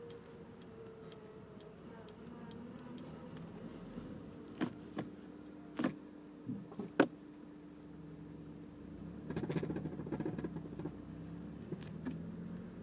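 2006 Honda Civic EX coupe's 1.8 L four-cylinder running at a steady idle drone through its new Megan Racing cat-back exhaust, with a few sharp clicks a little past a third of the way in and a buzzing rattle a few seconds later. This is the unexplained noise that appeared after the exhaust was installed.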